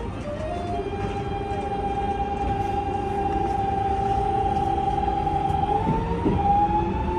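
Electric train's motor whine: two steady tones over a low rumble, stepping up in pitch just after the start and again near the end.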